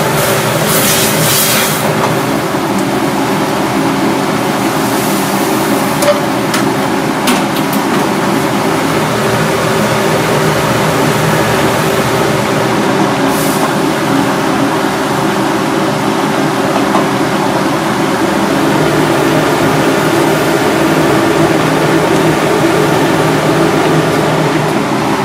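Steady loud roar of a large commercial ring gas burner at full flame under a pan of boiling water, with a couple of brief clicks about six and seven seconds in.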